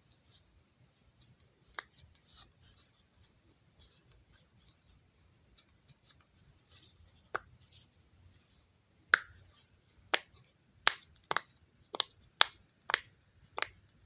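A hand-held fidget toy being clicked, with a few faint clicks at first, then a run of sharp clicks about two a second through the second half.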